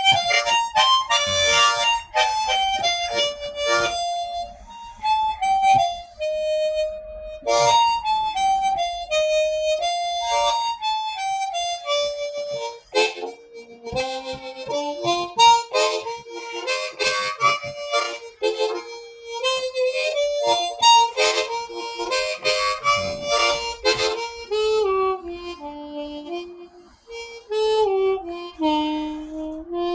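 Solo diatonic harmonica in B-flat, played in first position, playing an old-time fiddle-tune melody. The first half is higher with quick rhythmic chord pulses, and about halfway through the tune drops to a lower range.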